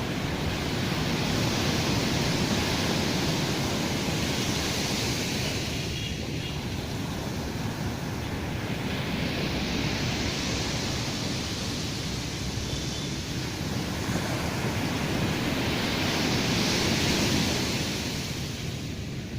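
Sea waves breaking and washing up on a sandy beach. Three swells of surf hiss come about six seconds apart over a steady low rumble.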